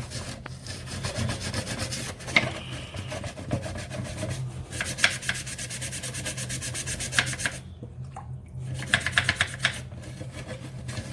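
A toothbrush scrubbing stained plastic trim with cleaning powder: quick back-and-forth strokes in runs, stopping briefly about eight seconds in.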